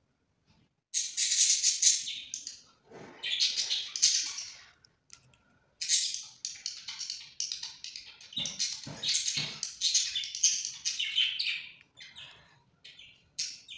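Small birds chirping in quick, high-pitched runs broken by short pauses, with a few dull knocks in the middle.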